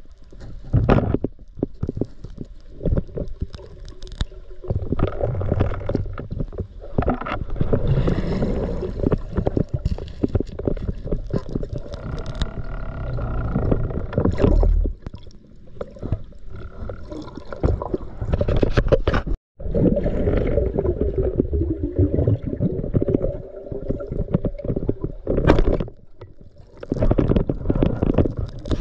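Water gurgling and rushing against a camera in the water, in uneven surges with scattered knocks and clicks.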